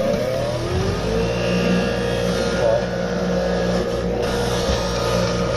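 A motor spinning up, its hum rising in pitch for about the first second and then running at a steady pitch.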